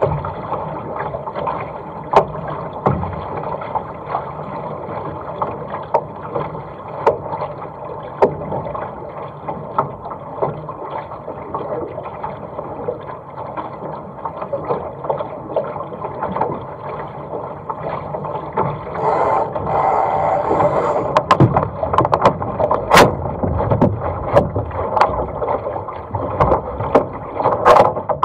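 Water rushing and splashing along a small sailing dinghy's hull under way, with scattered sharp knocks. About two-thirds of the way through the splashing grows louder and the knocks come thicker and sharper as the boat comes about.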